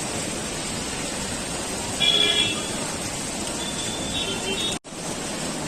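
Street ambience: a steady wash of noise with a vehicle horn sounding briefly about two seconds in, the loudest moment, and a fainter horn-like tone around four seconds. The sound cuts out for an instant near the end.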